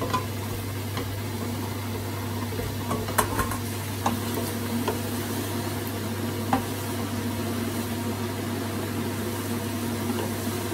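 Onion, garlic, ginger and chicken pieces sizzling in oil in a stainless steel pot, stirred with a wooden spoon that now and then knocks lightly against the pot. A steady low hum runs underneath.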